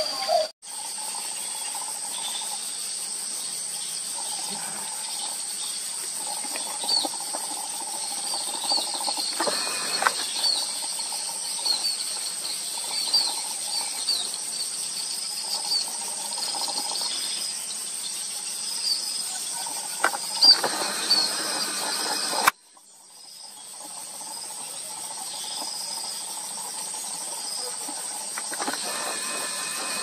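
Steady high-pitched insect trilling with many short bird chirps scattered over it. The sound cuts out for an instant near the start, and drops away again about two-thirds of the way through before fading back in.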